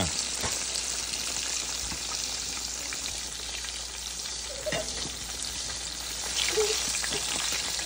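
Breaded catfish pieces deep-frying in hot oil: a steady sizzle with fine crackling.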